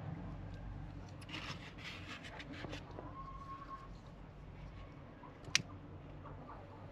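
Faint rustling and crackling of paper kindling being lit, with a run of quick crackles between about one and three seconds in. A short steady tone follows at about three seconds, and a single sharp click, the loudest sound, comes about five and a half seconds in.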